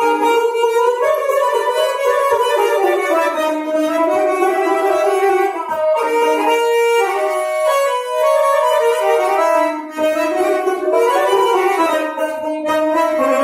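Azerbaijani folk instrumental: a garmon (button accordion) playing a fast, ornamented melody with reedy sustained notes, together with a tar (plucked long-necked lute).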